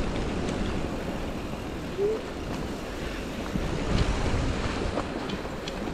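Wind buffeting the microphone over the steady rumble of mountain-bike tyres rolling along a dirt trail. There is a brief squeak about two seconds in, and a few light knocks from the bike over bumps near the end.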